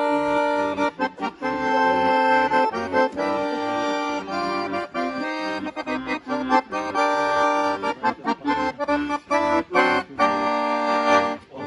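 Instrumental introduction to a song: a melody over held chords, played in a steady lilting rhythm.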